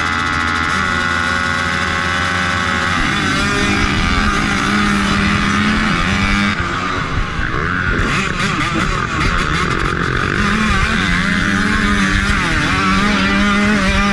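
Motocross dirt bike engines revving together at the starting gate, then the pack launching off the line about three seconds in and accelerating hard, engine pitches rising and overlapping.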